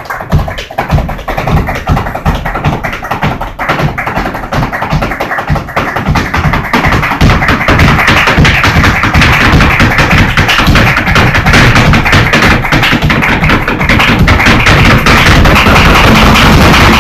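Live flamenco: a dancer's shoes striking a wooden stage in rapid footwork, over hand-clapping palmas and flamenco guitar. About seven seconds in, the sound grows louder and denser.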